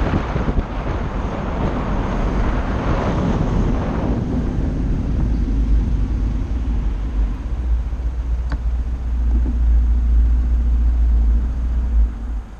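Honda SH 125i scooter's single-cylinder engine running as it rides, with wind rushing over the helmet- or body-mounted microphone, loudest in the first few seconds, then a steady low rumble as it slows. One sharp click about eight and a half seconds in, and the rumble drops off suddenly near the end as the scooter stops.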